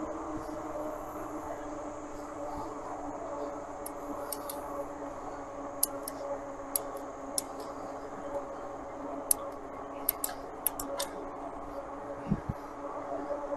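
Electric bike's hub motor whining steadily under power while riding, with scattered sharp clicks and ticks from the bike over the road.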